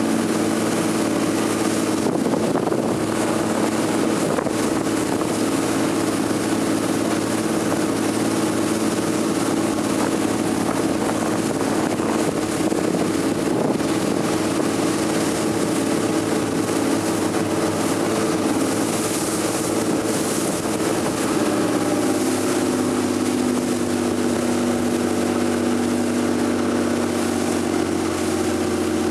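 Motor of a small wooden open boat running steadily under way, its note shifting slightly about three quarters of the way through, with wind on the microphone.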